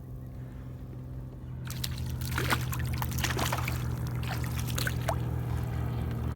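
Water splashing and sloshing close to a kayak, in many short crackling splashes that start about two seconds in, over a steady low hum that cuts off sharply at the end.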